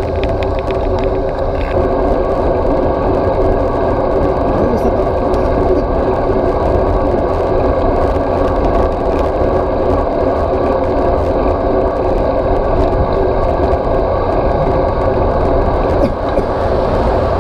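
Steady rush of wind over a bike-mounted action camera's microphone, mixed with the rumble of road-bike tyres rolling on pavement while riding at speed.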